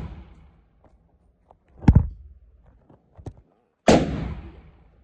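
Glock pistol shots: a shot's tail dies away at the start, a heavy bang comes about two seconds in, and a second sharp shot about a second before the end rings out in a long fading tail.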